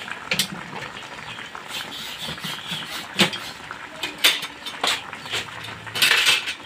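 Bagaong fish and green mango slices simmering in a wok in a little oil and sour liquid: steady bubbling and crackling with scattered sharp pops, and a louder burst of noise about six seconds in.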